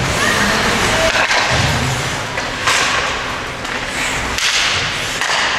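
Ice hockey play on a rink: sharp clacks of sticks and puck, four of them spread over a few seconds, over the scraping hiss of skates on the ice.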